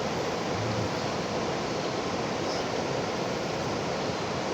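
Steady rushing of river water flowing over rocks, an even wash with no breaks.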